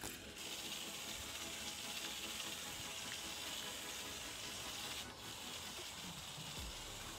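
Small electric drive motor of a toy RC skateboard whirring steadily as the tipped-over board's wheels spin freely in the air, a steady hiss-like whir.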